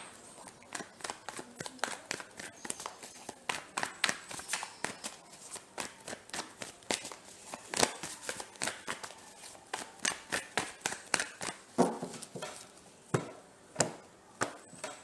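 A deck of tarot cards being shuffled overhand by hand: a run of quick, irregular flicks and slaps, several a second. Near the end, cards are set down on the cloth-covered table.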